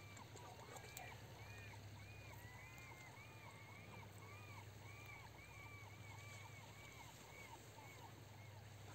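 Faint bird calling: a run of about fifteen short whistled notes, each rising and falling, about two a second, fading out near the end, over a low steady hum.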